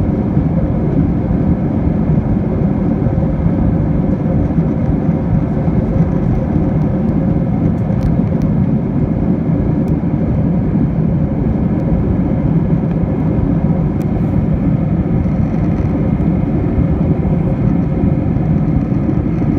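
Steady low roar of an Airbus A321's turbofan engines and airflow, heard inside the cabin from a window seat behind the wing during the climb after takeoff.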